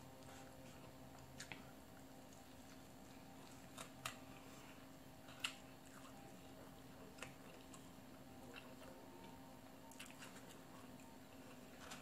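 Faint close-up chewing, with scattered short mouth clicks and smacks, over a steady low hum.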